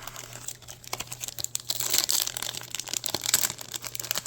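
Foil Pokémon booster-pack wrapper crinkling and crackling as it is handled and pulled at, with many quick crackles, loudest around the middle.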